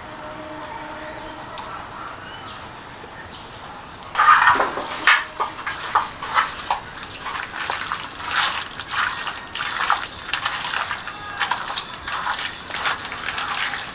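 Wet squelching and squishing of a bare hand kneading raw mutton pieces with spice paste in a steel bowl, starting about four seconds in as quick irregular squelches.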